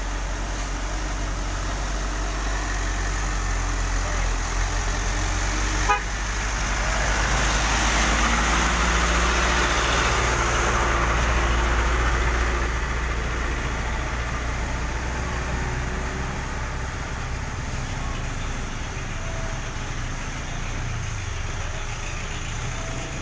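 Toyota Dyna light cargo truck's engine running as the loaded truck pulls through the tunnel and passes close by. It grows loudest for several seconds in the middle, then fades back to a steady hum of other traffic. A short horn beep comes near the end.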